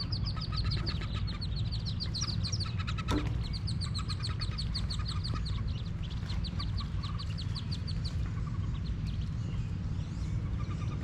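Wood duck ducklings peeping in a rapid, high-pitched chorus of short downward-sliding calls, which die away about eight seconds in. A single sharp click about three seconds in, over a steady low rumble.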